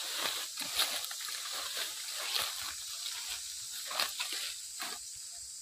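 Footsteps crunching through dry fallen leaves and brushing through leafy undergrowth: a run of irregular crackles and rustles.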